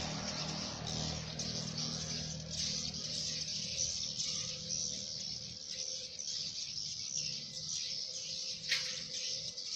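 A crowd of swiftlets twittering continuously in high-pitched chirps, with one sharp falling call near the end.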